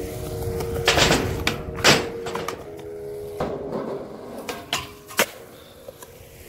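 Skateboard wheels rolling on concrete, with several sharp clacks of the board striking the ground, the loudest about two seconds in.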